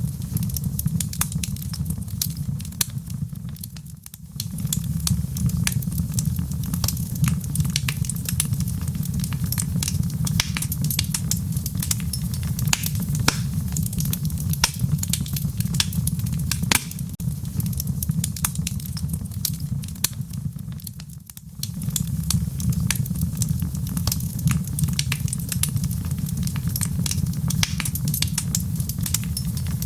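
Wood fire burning in a fireplace, crackling with many sharp pops over a steady low rush of the flames. The sound dips briefly twice.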